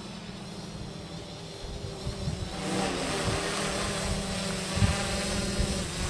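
Small multirotor drone's propellers buzzing, growing louder about halfway through as it comes closer, with gusty wind rumbling on the microphone.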